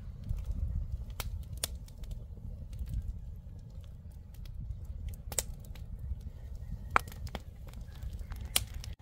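Wood fire crackling, with a few sharp pops scattered through, over a steady low rumble.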